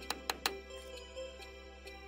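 Claw hammer driving a nail into a wooden roof batten: three quick sharp blows at the start, then they stop. Soft background music plays throughout.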